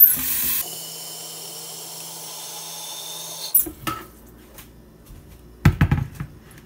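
Kitchen tap water running into a glass kettle as it is filled, its tone rising slightly as the kettle fills; the tap is turned off about three and a half seconds in. A few knocks near the end as the kettle is handled.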